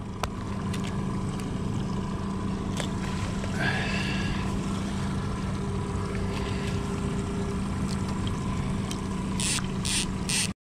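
A fishing boat's outboard motor running steadily at trolling speed, a low even hum. Near the end come a few short hissy bursts, and the sound cuts off abruptly just before the end.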